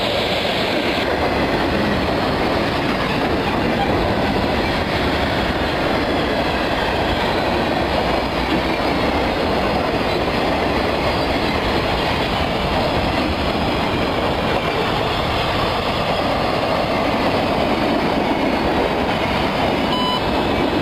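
Florida East Coast Railway freight train rolling past, a steady noise of its cars' wheels on the rails. The train carries intermodal and empty manifest cars.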